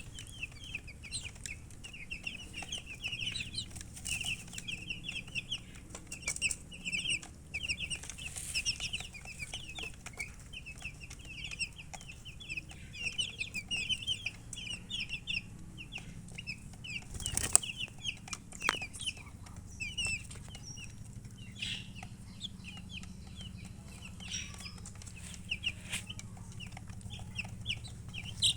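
A group of baby chicks peeping: a dense chorus of short, high chirps that thins out in the second half. A single sharp knock stands out about two-thirds of the way through.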